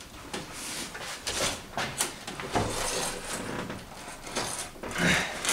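Long wrench being pulled on the crankshaft vibration-damper hub bolt of a BMW M51 diesel engine as the bolt is tightened another 60 degrees: a run of irregular metal clicks and scrapes.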